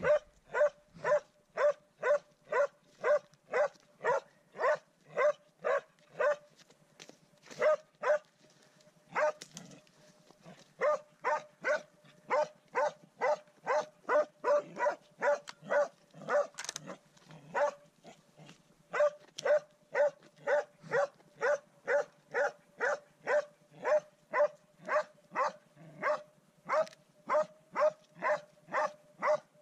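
Norwegian elkhound barking at bay at a wild boar: steady single barks at the same pitch, about two a second, broken by a few short pauses.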